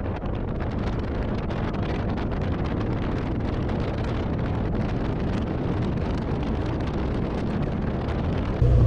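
Wind buffeting the microphone of a camera mounted outside a moving car's door, over the car's running and road noise. Near the end it cuts abruptly to a louder, steady low hum.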